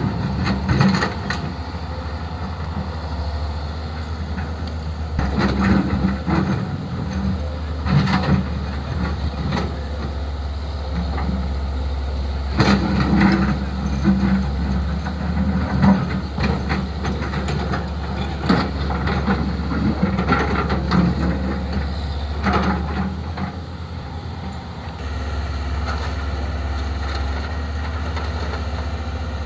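Hyundai HX220S excavator's diesel engine running steadily under working load, with scattered knocks and clanks, about every two to four seconds, as it digs.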